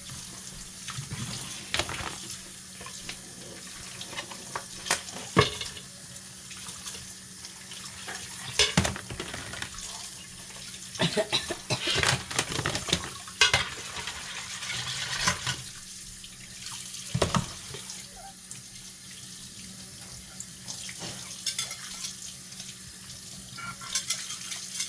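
Kitchen tap running into a sink while dishes are washed, with frequent short clinks and clatters of dishes and utensils.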